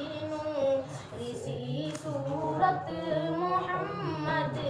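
Unaccompanied voices singing an Urdu naat (devotional poem), with a lower man's voice running under the higher voices in the second half.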